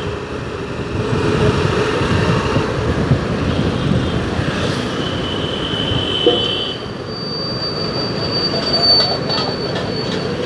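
Steady rumble of a moving vehicle, with a high squeal setting in about halfway through and a thinner, higher whine after it.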